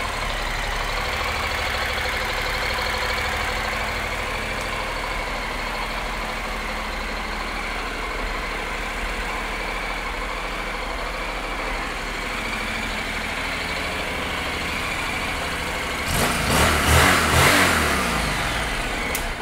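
2013 Honda NC700XD's parallel-twin engine idling steadily, then revved several times in quick succession near the end.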